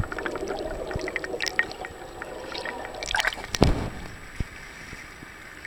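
Muffled gurgling and bubbling of water around a submerged camera, with a few sharp splashes about three seconds in.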